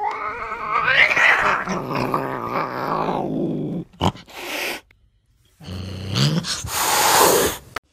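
Young kittens growling, a long wavering growl followed by two shorter breathy hisses about four and six seconds in.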